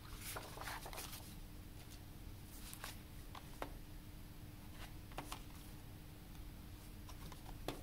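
Faint handling of a boxed disc set: paper and cardboard rustling and scattered light clicks and taps as the slipcase and plastic disc case are picked up and opened, over a steady low hum.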